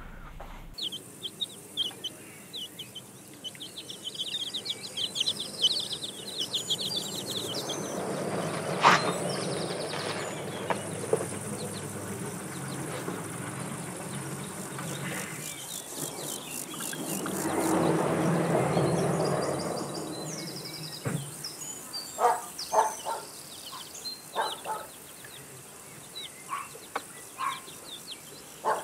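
Outdoor garden ambience: birds chirping over a faint, steady high insect hum. Two slow swelling rushes of noise come about a quarter of the way in and again past the middle, and short scattered chirps or clicks follow near the end.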